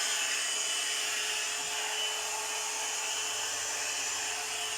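Premio 3-in-1 blower brush hot-air styler running steadily on its low setting: an even rush of air with a thin, steady motor whine.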